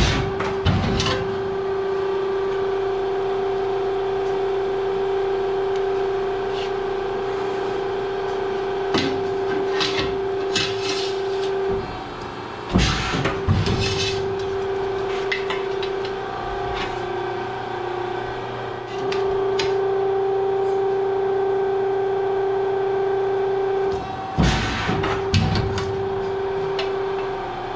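Press brake running with a steady hum. Twice, about 12 and 24 seconds in, the hum breaks and a cluster of sharp metal clanks follows as the machine strokes and bends the metal panel. A few lighter knocks come from the sheet being handled against the tooling in between.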